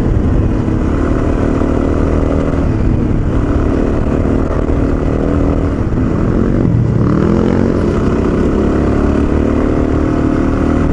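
Single-cylinder dual-sport motorcycle engine running steadily while riding. The engine note drops briefly about seven seconds in as the throttle comes off, then climbs again.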